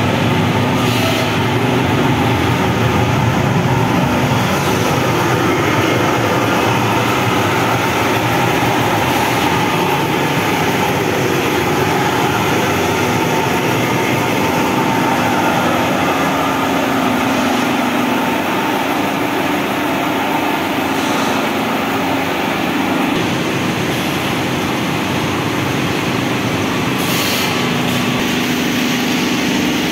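Loud, steady machinery noise of a running egg tray (paper pulp moulding) plant: blowers, fans and motors droning together with a low hum.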